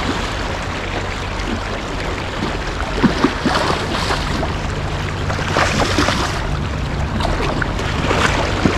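A river's current rushing steadily, with a few short splashes and knocks about three seconds in and again near the end.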